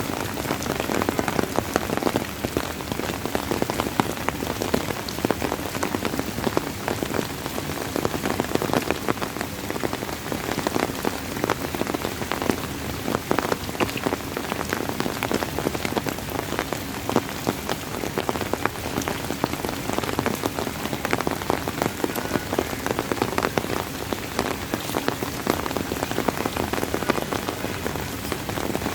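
Steady rain falling on a surface, a dense patter of many individual drops, with no change in intensity.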